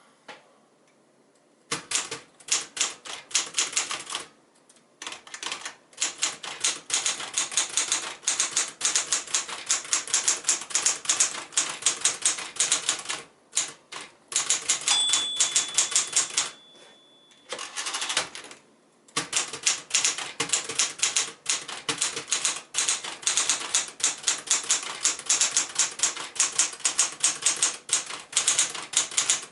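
1964 Smith-Corona Galaxie II manual portable typewriter typing in rapid runs of keystrokes with short pauses. About halfway through, the margin bell rings to signal the end of a line, the typing stops, and the carriage is returned before typing resumes.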